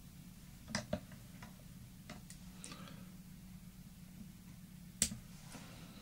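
Small clicks and taps of fingers working the ends of lead wire down onto a fly hook held in a tying vise, with one sharper click about five seconds in.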